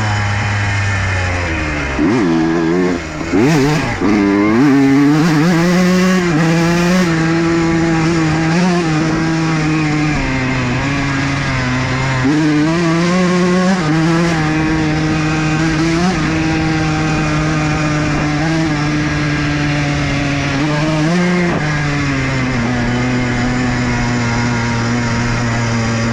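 Honda CR125 two-stroke single-cylinder dirt bike engine under riding load. It revs up and down sharply in the first few seconds, then runs at a fairly steady pitch with a few short throttle surges, and settles to an even note near the end.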